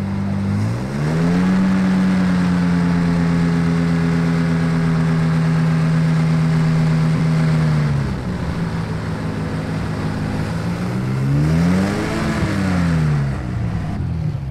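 An engine revving: the pitch climbs about a second in, holds steady for several seconds, drops back, then sweeps up and down once more in a short rev.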